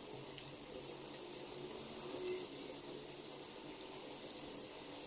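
Besan-battered onion pakoras frying in hot oil in a kadhai: a steady sizzle with many small scattered pops.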